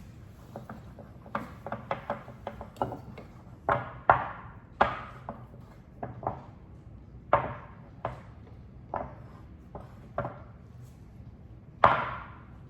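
Irregular knocks and clinks of kitchen utensils against dishes, about one or two a second, the louder ones with a short ringing tail.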